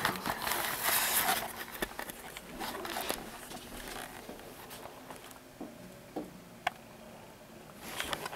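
Rustling and handling noise, loudest in the first second or so, then scattered light clicks and taps with one sharp tap late on and more rustling near the end.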